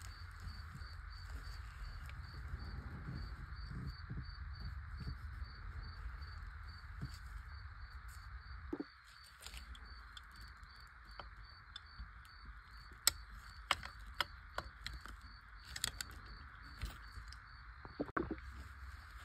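Steady background hum with a faint, rapid high ticking and a low rumble that stops about nine seconds in. In the second half come a handful of sharp clicks and taps.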